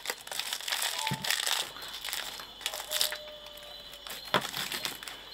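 Banana leaves rustling and crinkling in irregular handfuls as they are crumpled and pressed into the open ends of green bamboo tubes to seal them for roasting.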